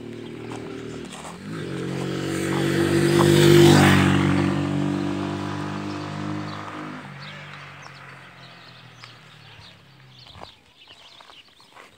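A motor vehicle passing on the road: its engine grows louder for about three and a half seconds, peaks with a rush of noise as it goes by, then fades away over the next several seconds.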